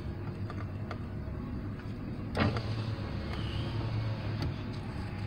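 Vehicle engine idling, heard from inside the cab as a steady low hum, with light clicks and one brief louder sound about two and a half seconds in.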